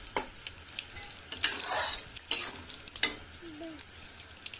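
Metal spatula stirring a simmering vegetable curry in a metal wok (kadai), scraping the pan a few times with a longer scrape about a second and a half in, over a light sizzling crackle from the curry.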